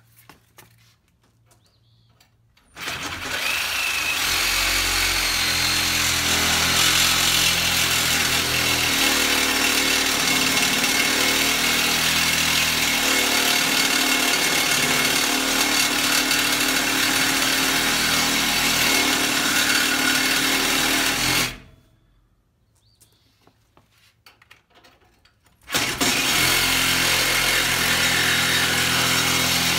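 Cordless reciprocating saw cutting through a galvanized steel square-tube trailer tongue. It starts about three seconds in and runs steadily for about eighteen seconds, stops suddenly for about four seconds, then starts cutting again.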